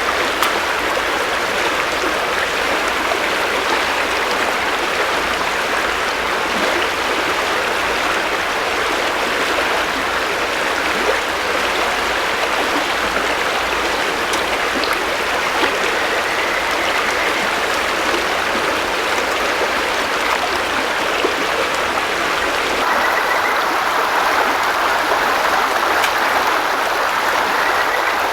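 River water flowing steadily over stones, an unbroken rushing sound.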